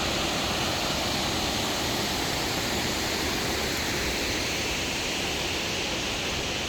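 Steady, even rush of water from Burney Falls and the creek running below it.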